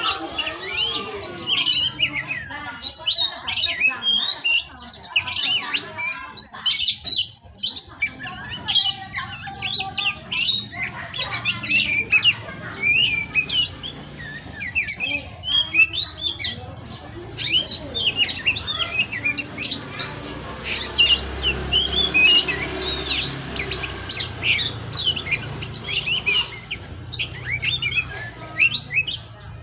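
Songbird song in a rapid, unbroken string of varied chirps, whistles and harsh notes: a training recording (masteran) for teaching young oriental magpie-robins their song.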